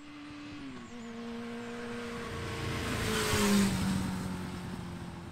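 2001 Yamaha R6's 600 cc inline-four riding past: the engine note builds to its loudest about three and a half seconds in, then drops in pitch and fades as the bike rides away.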